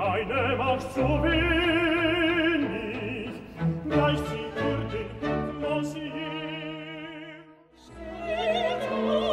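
Operatic singing with vibrato over an orchestra with bowed strings. The music fades almost to nothing about three-quarters of the way through, then the voice and orchestra come back in.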